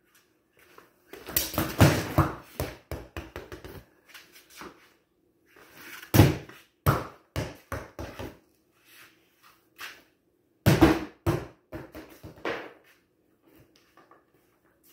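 A hollow plastic toy bowling ball thrown onto a concrete floor three times, each throw a loud first hit followed by quicker, fainter bounces that die away, knocking into plastic toy bowling pins.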